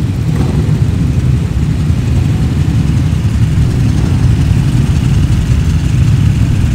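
Dynotec-tuned Moto Guzzi Le Mans racer's air-cooled V-twin idling steadily and loudly, with other racing motorcycles' engines running around it.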